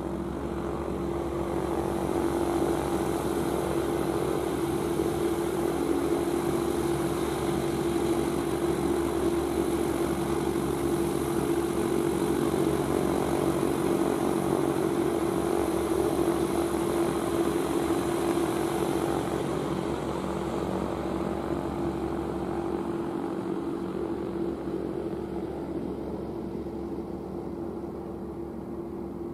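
Ultralight aeroplane's propeller engine at takeoff power, a steady droning tone that fades over the last several seconds as the aircraft climbs away.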